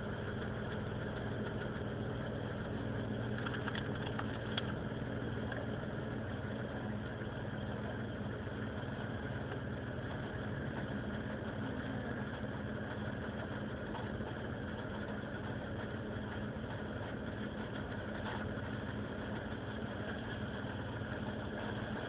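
Vectra GSi's 2.5-litre V6 engine running at a rough idle, a steady, even sound.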